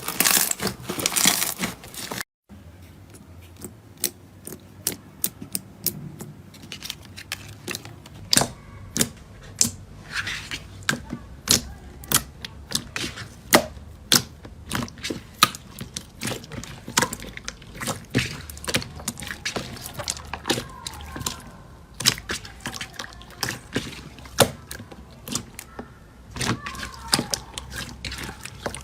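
Hands working slime, making many sharp, irregular clicks and pops, a few a second. Before a cut about two seconds in there is a louder crinkling, crunching sound.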